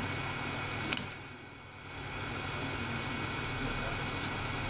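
Heat gun blowing steadily, with a sharp click about a second in and a brief dip in level just after it.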